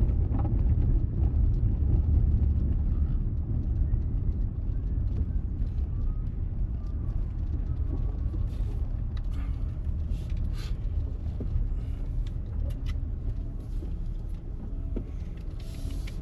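Car road noise heard from inside the cabin while driving: a steady low rumble that eases a little partway through, with scattered light ticks.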